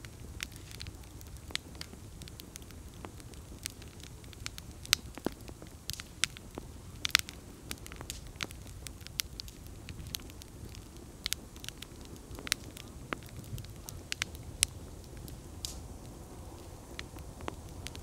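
Wood campfire crackling, with irregular sharp pops and snaps, a couple of them louder about five and seven seconds in, over a low steady background.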